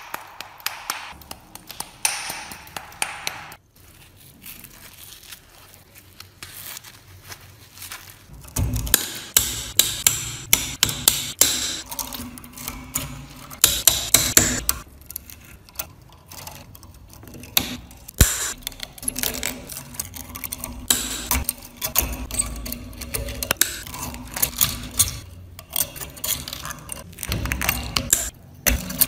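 Steel hand tool chipping and scraping caked rust and dirt off a badly rusted antique lock, in irregular runs of clicks, knocks and scrapes. The work is quieter for the first few seconds and densest about a third of the way in.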